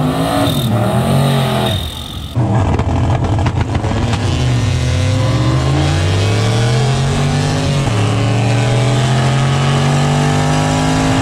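Turbocharged 283 small-block Chevy V8 in a stripped Corvette-bodied drag cart. It revs in short blips at first. After a cut it runs at full throttle down a drag strip, heard from inside the car, its pitch climbing through each gear with two upshifts.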